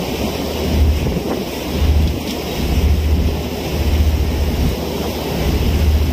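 Strong wind buffeting the microphone, a heavy low rumble that swells and fades in uneven gusts every second or so.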